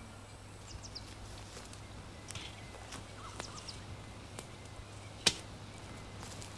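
Small wood campfire crackling quietly with a few sharp ticks, and one louder sharp snap about five seconds in, over faint bird chirps.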